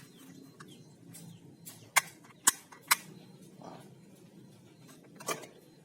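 Plastic toy shotgun clicking: three sharp clicks about half a second apart near the middle, then one more near the end.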